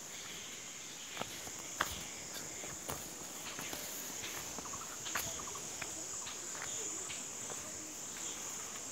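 Steady, high-pitched chorus of insects chirring, with a few sharp clicks scattered through it, the loudest about two seconds in and again about five seconds in.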